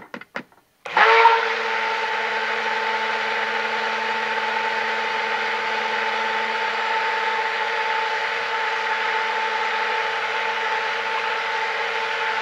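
Immersion (stick) blender switched on about a second in and running steadily with a fixed-pitch motor whine, blending thickening soap batter. A few light clicks just before it starts.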